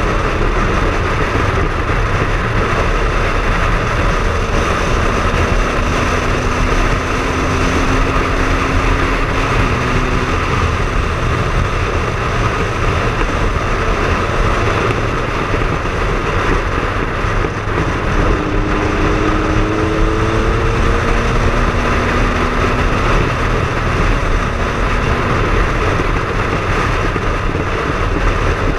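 Triumph Speed Triple's three-cylinder engine running while riding at a steady cruise, under a steady rush of wind and road noise, the engine note rising slightly a couple of times.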